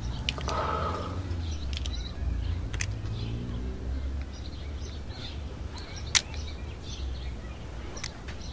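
Outdoor ambience with small birds chirping now and then over a steady low hum, and one sharp click about six seconds in.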